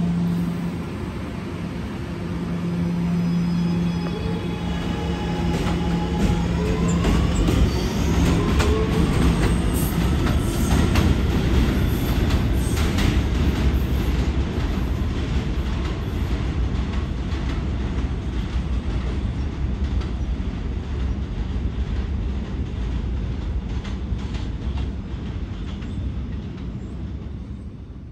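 Kawasaki R211A subway train pulling out: a steady hum, then a rising whine from its traction motors about six seconds in as it accelerates, with wheels clicking and clattering over the rail joints. Its rumble then slowly fades as it draws away.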